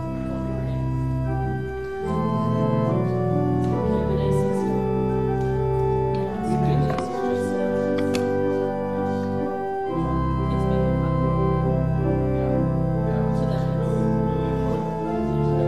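Organ music: sustained chords held and changing every few seconds, with deep bass notes that drop out for a while and come back in about ten seconds in.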